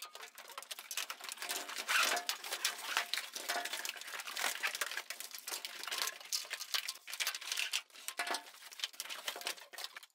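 Cardboard and plastic packaging of Nerf toy blaster boxes crinkling, rustling and tearing as they are opened, with many small clicks and knocks of the plastic blasters and parts being handled.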